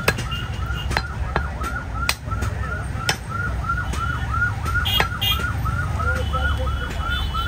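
Several sharp knocks of a butcher's cleaver and meat on a wooden chopping block. Under them runs a rapid high chirping, about three short rising-and-falling notes a second, over a low rumble.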